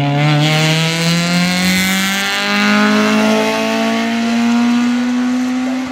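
VW Scirocco 8-valve race car accelerating hard up the hill-climb course, its engine note rising steadily with a step in pitch about two seconds in.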